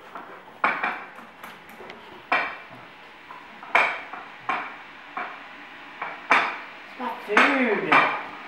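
Dishes and cutlery clinking and clattering in separate knocks about once a second, with a short gliding squeak near the end.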